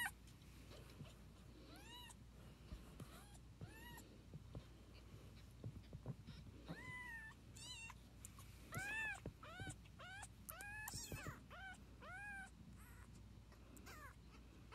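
Newborn kittens mewing: many short, thin, high-pitched mews, each rising and falling in pitch, coming in loose runs. The calls are faint and grow more frequent and louder in the second half.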